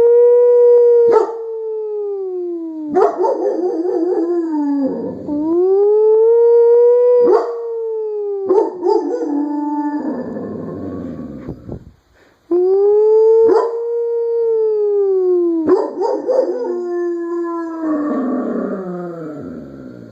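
A dog howling along with a person's siren-imitating howls, in three rounds. Each round opens with a long rising-and-falling call, then breaks into wavering, overlapping howls that trail off.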